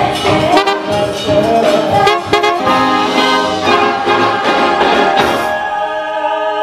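A big band's brass section, trumpets and trombones, playing a full ensemble passage during a sound check, settling into a held chord near the end.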